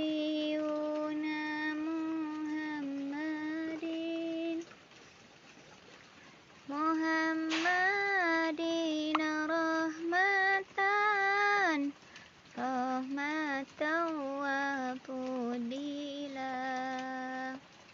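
A high voice singing an Islamic sholawat unaccompanied, in long held and ornamented notes without clear words. It pauses for about two seconds roughly a third of the way through, then goes on in shorter phrases.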